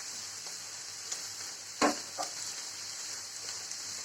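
Chopped spinach and corn sizzling steadily in butter in a frying pan while being stirred, with a few sharp knocks of the stirring utensil against the pan, the loudest about two seconds in.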